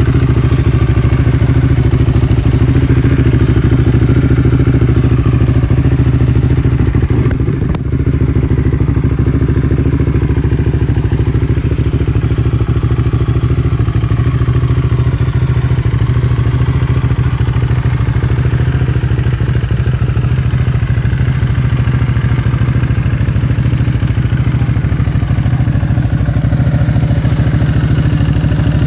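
Ducati Hypermotard 821's L-twin engine idling steadily, with a brief dip in loudness about eight seconds in.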